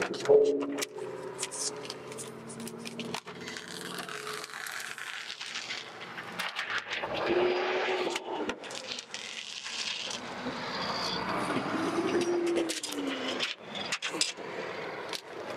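Handheld applicator tool scraping across Bird Divert transfer film on window glass as the film is pressed down, with scattered clicks and two short squeaks.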